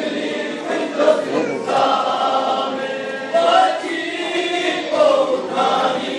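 Crowd of men singing a Muharram mourning lament together in unison, unaccompanied, in phrases of about a second or two.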